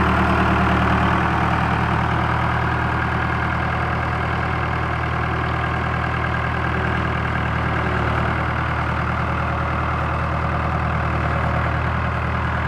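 Case 660 trencher's engine running steadily at low revs, dropping slightly about a second in.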